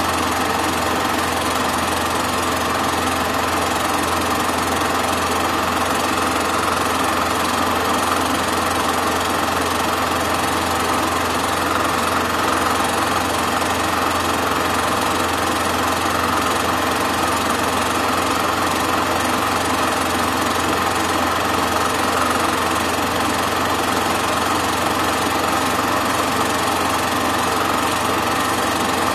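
Super 8 film projector running steadily, a continuous mechanical whir and clatter with a constant hum.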